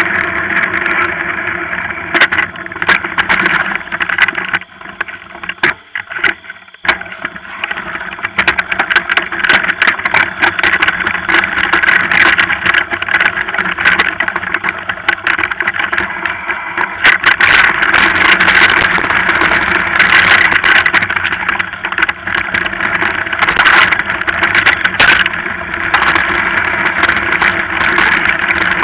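Mountain bike ridden over a rough trail: a steady drone with constant rattling and clattering. It goes quieter for a moment about five to seven seconds in.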